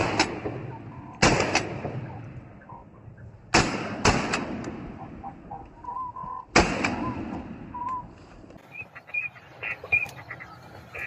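Shotgun fired several times in quick succession over about seven seconds, the shots one to three seconds apart, each with a short fading echo.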